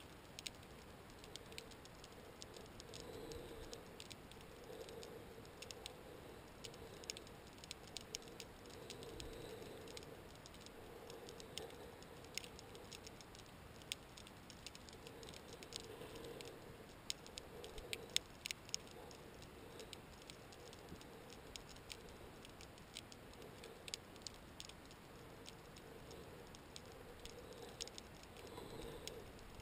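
Underwater crackling: many faint, irregular sharp clicks, with a low murmur that swells and fades every second or two.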